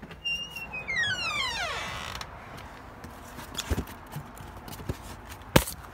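Door hinge creaking as the door swings open, one long squeal falling steadily in pitch, followed by a few light clicks and a sharper click near the end.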